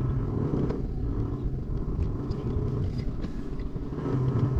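Campervan driving at low speed: a steady low engine and road drone.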